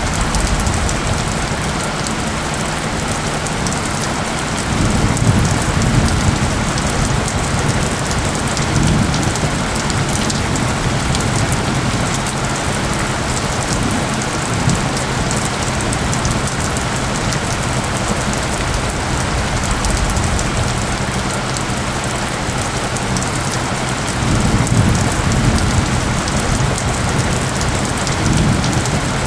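Steady heavy rain on surfaces, with a low, steady tone underneath from the mixed-in isochronic tones. Two louder low rumbles swell about five seconds in and again near the end.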